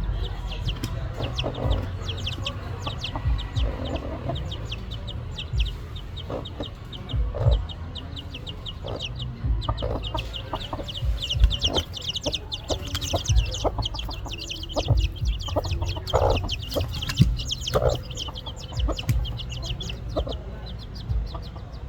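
Birds calling: a steady stream of quick high-pitched chirps with short lower clucking calls scattered among them.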